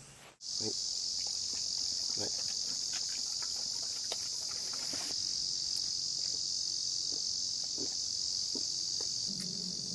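Insects singing in a continuous high-pitched chorus, steady without breaks, starting suddenly about half a second in, with faint light clicks underneath.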